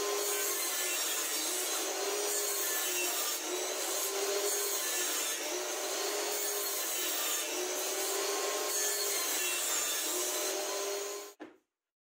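Homemade table saw running and crosscutting a laminated chipboard panel, a steady saw noise with a wavering motor tone. It cuts off suddenly near the end.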